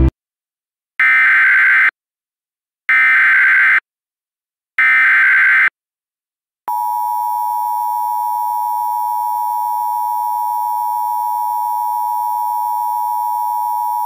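Emergency Alert System tones: three short bursts of warbling SAME header data, each about a second long with a second of silence between them, then a loud, steady attention tone starting about seven seconds in.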